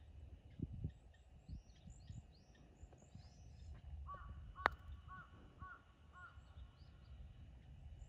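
A putter strikes a golf ball once: a single sharp click about halfway through. Birds call around it: high chirps in the first half, then a run of five short calls in quick succession either side of the putt.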